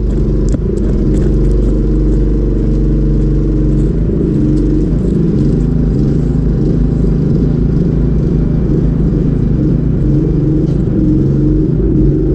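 An engine running steadily at an even speed, with a few light clicks of clatter in the first couple of seconds.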